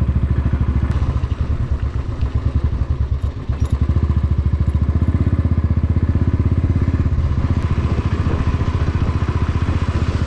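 Royal Enfield Thunderbird 350's single-cylinder engine running as the bike rides along, its exhaust beating in a fast, even thump. It eases off briefly about two seconds in, then pulls steadily again.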